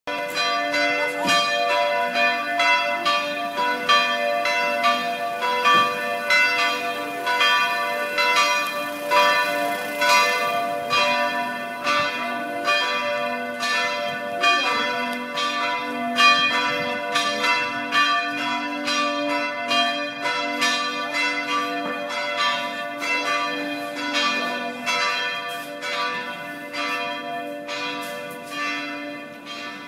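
Several church bells ringing together, struck over and over in quick succession with a long ring that overlaps. They grow somewhat quieter over the last few seconds.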